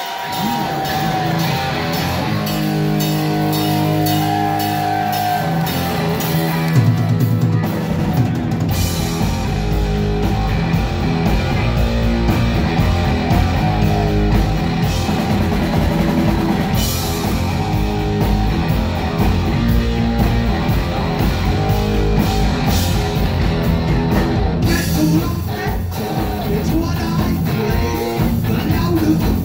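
Heavy metal band playing live: a distorted electric guitar riff alone for about the first seven seconds, then the drums and bass come in and the full band plays on.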